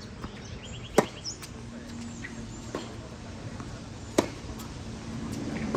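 Tennis ball struck sharply by a racket twice, about three seconds apart, with fainter ball bounces and hits in between during a baseline rally on a hard court.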